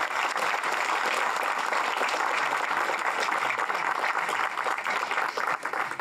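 Crowd applauding: a dense patter of many hands clapping, beginning to thin out near the end.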